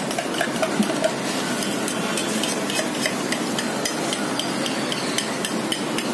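Eggs being beaten with a spoon in a steel tumbler: a fast, regular clicking of metal on metal, about three clicks a second, over a steady hiss.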